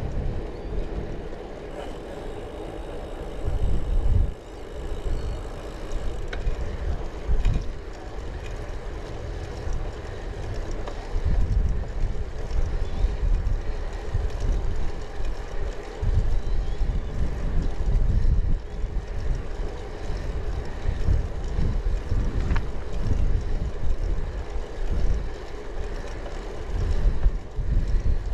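Wind buffeting the microphone of a camera on a moving bicycle, coming in irregular low gusts over a steady hum of riding.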